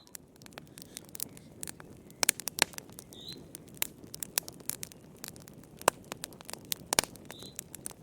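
Wood fire in a fireplace crackling: irregular sharp pops and snaps over a low steady hiss, with a few louder snaps, and two faint brief high squeaks about a third of the way in and near the end.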